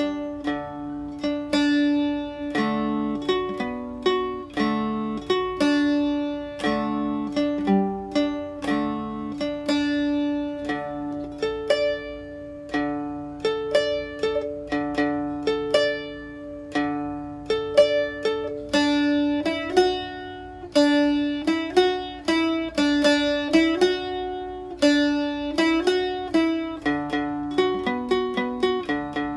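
Seagull Merlin fretted dulcimer playing a slow, short tune: a plucked melody of single ringing notes over a steady drone string.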